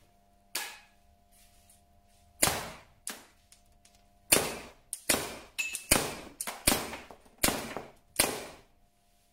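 Tippmann TPX CO2 pepper-ball pistol firing a string of about ten sharp shots: a few spaced a second or two apart, then several in quick succession.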